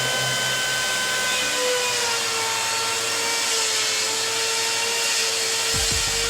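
Electric power tool's motor running steadily with a high whine; the whine dips slightly in pitch about two seconds in.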